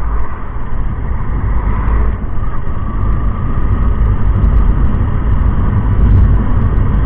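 Steady low rumble of wind and motorcycle riding noise, picked up by a helmet-mounted action camera's built-in microphone while riding on a road.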